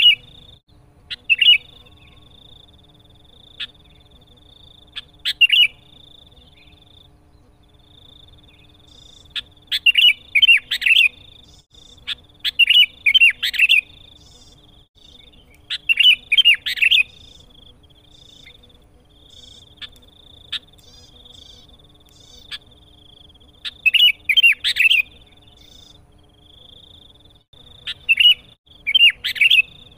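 Sooty-headed bulbul (kutilang) singing in loud short phrases of quick rising-and-falling notes, each burst about a second long and repeated every few seconds. This is its vigorous challenge song aimed at a rival. A faint steady high tone runs behind it.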